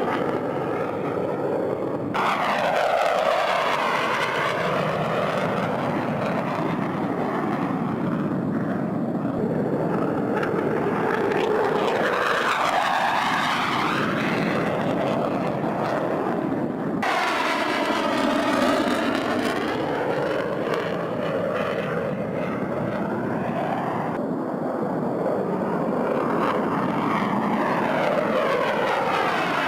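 Fighter jet engines running loud on takeoff, with a sweeping whoosh that rises and falls in pitch as the jets pass. The sound changes abruptly twice, about two seconds in and again about seventeen seconds in.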